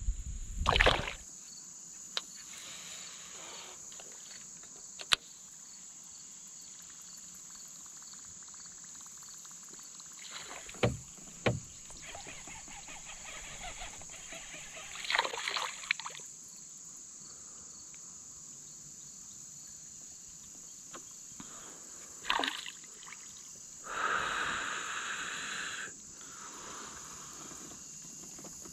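Sounds of paddling and handling a plastic fishing kayak on calm water: a handful of brief paddle splashes and sharp knocks against the hull, with a longer splashy stretch near the end. Under them runs a steady high-pitched insect drone.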